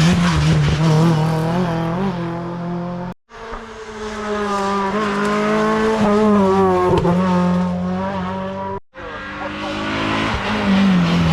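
Racing car engines at full throttle, each note holding high and then falling in pitch as the car comes off the power for a corner. The sound is three separate runs cut together, broken by two abrupt silences about 3 seconds and 9 seconds in.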